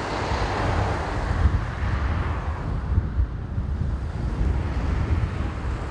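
Wind buffeting the camcorder's microphone, a gusty low rumble over a steady rushing noise.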